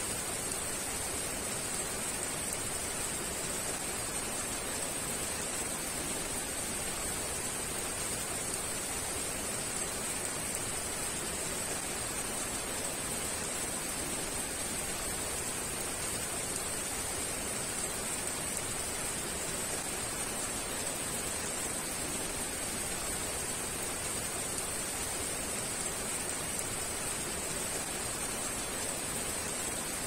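Heavy rain falling: a steady, even hiss with no single drops or splashes standing out.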